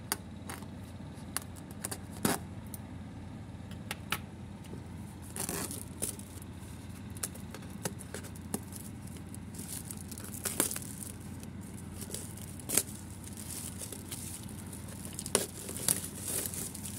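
Clear plastic shrink wrap being snipped with scissors and torn off a cardboard toy box: crinkling and tearing with scattered sharp snips and clicks, the box handled throughout.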